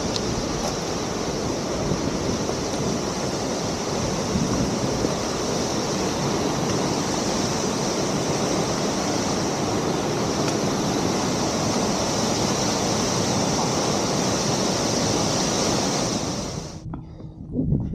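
Steady rush of falling water, loud and even, that cuts off abruptly about a second before the end, leaving a few faint clicks.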